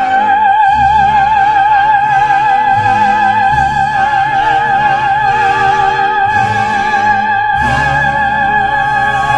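Classically trained soprano singing in operatic style, holding one long high note with a wide vibrato over accompaniment chords that change beneath it.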